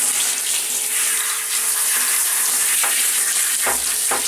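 Handheld shower head spraying water onto a wet dog's coat in a bathtub: a steady hiss of spray. A couple of soft bumps come near the end.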